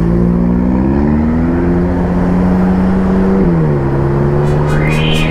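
Motorbike engine running under way, its pitch rising about a second in and dropping about three and a half seconds in, with a rising whoosh near the end.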